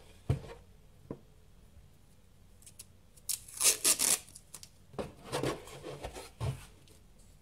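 Masking tape being pulled off its roll, in two spells, the first a little after halfway and the second near the end, with a couple of light knocks from the cardboard box being handled early on.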